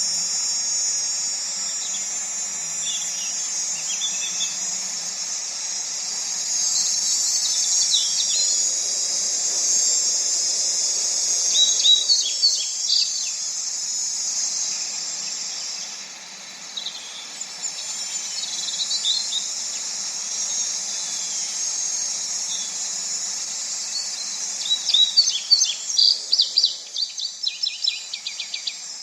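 Steady, high-pitched insect chorus with short bird chirps over it now and then, and a quick run of chirps near the end.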